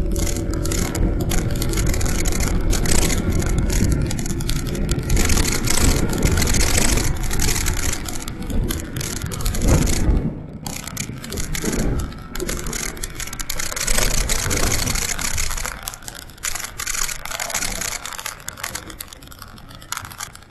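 Motorcycle riding along a road: engine and road noise under heavy wind buffeting on the microphone, quieter over the last few seconds.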